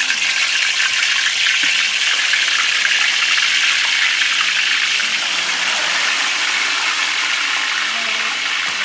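Spiced chicken feet deep-frying in a wok of hot oil: a loud, steady sizzling hiss that eases slightly near the end.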